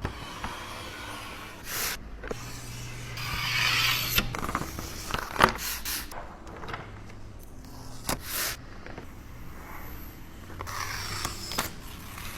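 Spray bottle spritzing water onto car window glass several times in short hisses, with scrubbing and squeegee scraping across the wet glass in between, during window-tint preparation.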